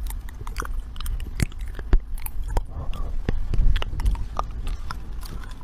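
A cat gnawing on a black electrical cable, its teeth making irregular sharp crunching clicks, a few a second, over a low rumble.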